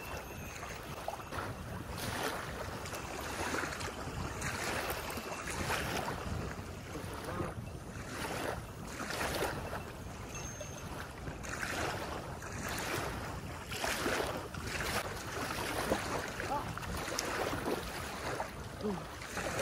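Small waves washing onto a sandy lake shore, with wind gusting on the microphone; the noise swells and falls every second or two.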